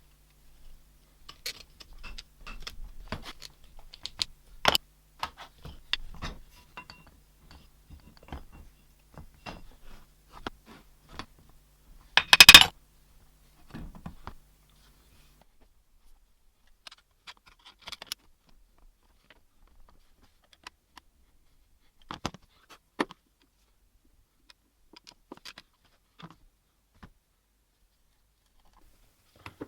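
Metal tools and parts being handled on a workbench: scattered clinks, taps and short scrapes, with one louder clatter about twelve seconds in and sparser knocks after.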